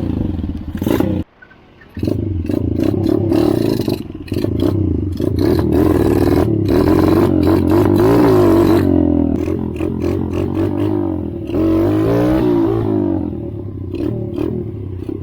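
Engine running and revving, its pitch rising and falling again and again, with clattering throughout; the sound drops out briefly about a second in.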